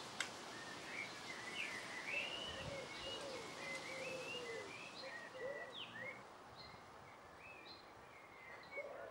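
Birds chirping and twittering faintly over a light outdoor hiss, with repeated lower cooing notes mixed in.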